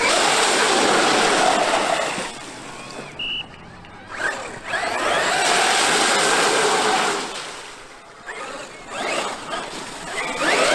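Traxxas X-Maxx RC monster truck being driven in three bursts of about two and a half seconds each: loud motor and tyre noise, with quieter gaps between the bursts.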